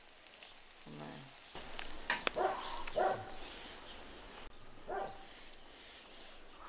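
A dog barking several times in short single barks, with a couple of sharp clicks in between.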